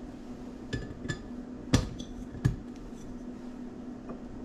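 Glassware and kitchen containers being handled on a countertop: four sharp clinks and knocks in about two seconds, some with a brief glassy ring. A faint steady low hum sits underneath.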